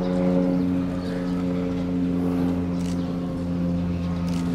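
Steady, unchanging machine hum with a low pitched drone, like a motor or fan unit running.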